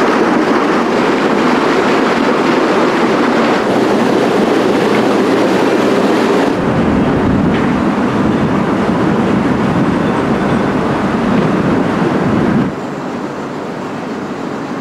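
Steady rumbling noise aboard the steam ship SS Shieldhall. It changes abruptly twice, about six and a half and about twelve and a half seconds in, where shots are cut together. The last part is quieter.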